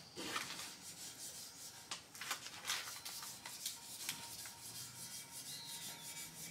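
Hand sanding the primer on a 1977 Camaro Z28 bumper with 600-grit sandpaper on a pad: a run of quick, uneven back-and-forth rasping strokes, about two a second.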